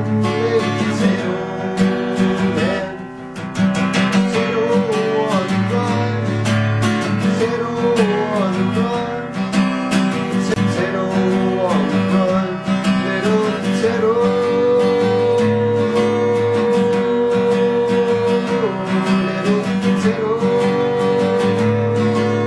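Acoustic guitar strummed in a steady rhythm while a man sings along, holding one long note a little past the middle.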